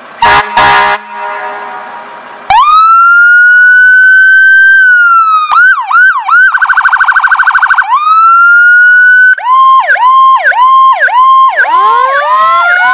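Two short horn blasts, then a fire engine's electronic siren starts about two and a half seconds in and steps through its tones: a slow rising and falling wail, a few quick yelps, a fast warble, a return to the wail, then a rapid pulsing pattern. Near the end overlapping rising sweeps come in.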